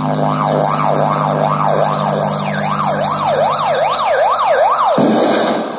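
Billboard Bluetooth speaker playing a siren-like sound effect in a music track: a loud tone sweeping rapidly up and down, about three times a second and speeding up slightly, over a steady low drone. Both stop abruptly about five seconds in.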